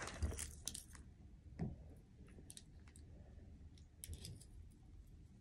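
A few faint, sharp clicks from a miniature toy gun keychain being handled in the fingers, with a small cluster of clicks about four seconds in.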